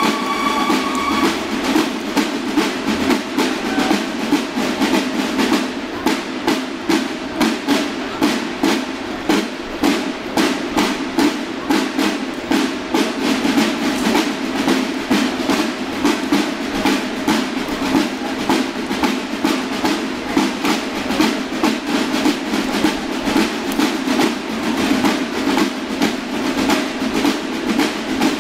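Banda de guerra snare drums playing a fast marching cadence in unison, with strong accents about twice a second. A held bugle note stops about a second in, leaving the drums alone.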